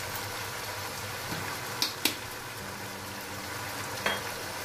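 Chicken pieces simmering in a sauce in a nonstick wok, a steady bubbling hiss. Two sharp clicks come about two seconds in and another near the end.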